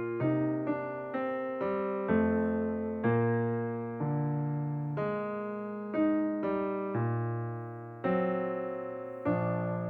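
Background music: a piano-like keyboard playing slow chords, each struck and left to fade before the next, the last one near the end ringing on.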